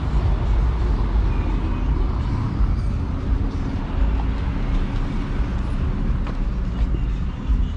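Cars driving slowly along a cobblestone street, their tyres rumbling over the stones, with one car passing close by.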